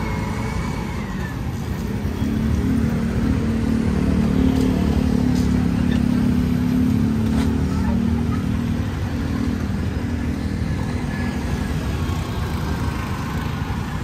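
Street traffic, with a motor vehicle's engine passing close: it builds over the first couple of seconds, is loudest around the middle, then fades.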